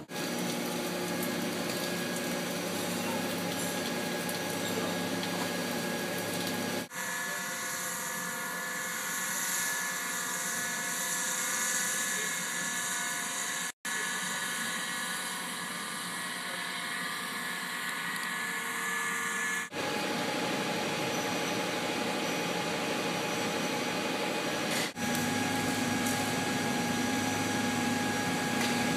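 Steady drone of running industrial machinery, several held tones over a hiss, that changes character abruptly about 7, 14, 20 and 25 seconds in.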